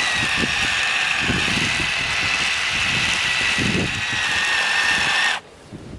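Electric drive of a 1/16-scale RC truck, a Titan 12T 550 motor through a Summit transmission, whining steadily as it drives 3D-printed tracks through deep snow, with snow crunching under the tracks. It cuts off suddenly about five seconds in.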